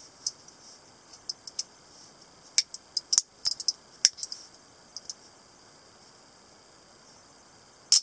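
Lever-lock stiletto switchblade being handled: a scattering of light, sharp metallic clicks from its lever and fittings, clustered in the middle, then a loud single click just before the end as the blade springs open.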